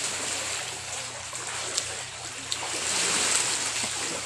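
Shallow water washing over wet sand at the shore, a steady hiss with a few faint clicks.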